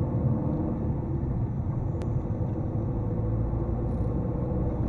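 Car's engine and tyre noise heard from inside the cabin by a dashcam: a steady low rumble with a faint engine hum, and a single short tick about two seconds in.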